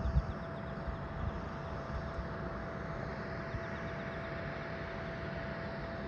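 Boeing 767-300ER's General Electric CF6 turbofan engine running during engine start: a steady whine over a broad rushing hum. A few low thumps come in the first second and a half.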